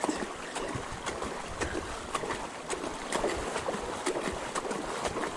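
A bicycle pushing through floodwater: a steady sloshing and splashing of water around the wheels, with many scattered sharp ticks.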